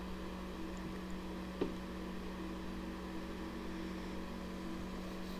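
Steady low room hum, an even drone with a faint hiss, broken by a single short click about one and a half seconds in.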